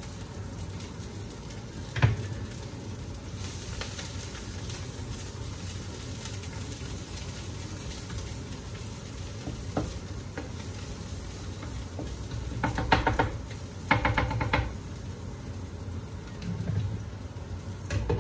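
Garlic, ginger and greens sizzling in butter in a frying pan on high heat, with a wooden spatula stirring, knocking and scraping against the pan. There is a sharp knock about two seconds in and two short bursts of quick scraping strokes about two-thirds of the way through.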